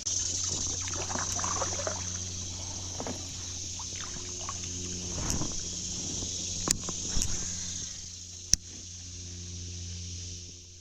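Fast, high creek water rushing steadily, with a steady low hum underneath and a few sharp knocks and clicks from handling in the kayak, the loudest about two seconds before the end.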